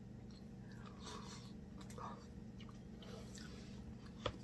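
Faint chewing and wet mouth sounds of someone eating seafood boil, with one sharp click near the end.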